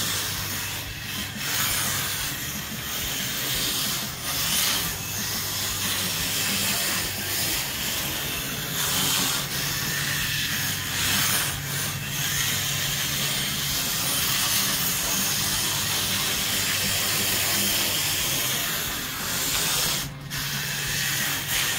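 Micro RC drift car with a 3500 kV sensorless brushless motor on a 3S battery, driven in slides around a smooth track: a continuous motor whir and tyre hiss that swells and eases with the throttle.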